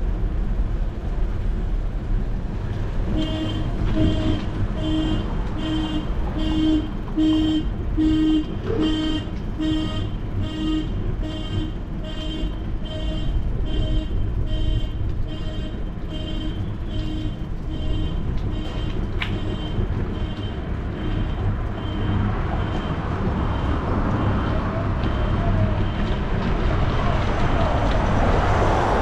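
Low rumble of wind and street traffic heard from a bicycle riding along a city street. A few seconds in, an electronic warning beeper starts, repeating evenly about one and a half times a second, and fades away after about fifteen seconds. Near the end a car passes.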